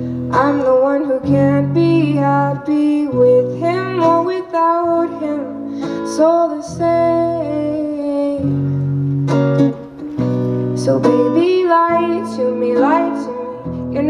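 A woman singing while strumming a steel-string acoustic guitar, in a live solo performance.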